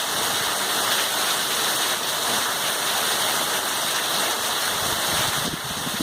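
Heavy rain falling and splashing in a steady hiss, dropping a little in level near the end.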